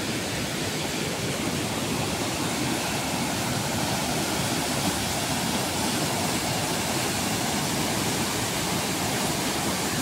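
Waterfall in full flood, a heavy volume of brown, muddy water pouring over rock ledges and churning into foaming rapids below: a steady rushing roar.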